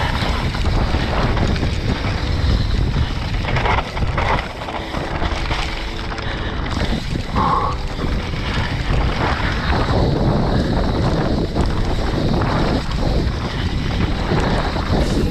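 Wind buffeting the microphone over a steady rumble from a Forbidden prototype mountain bike ridden fast on a dirt trail.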